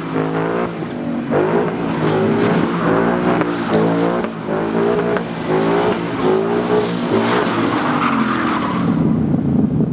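A car engine being revved up and down again and again, about once a second, while its rear tyres spin and skid through a burnout or donut, with a steady hiss of tyre noise. The revs sag near the end.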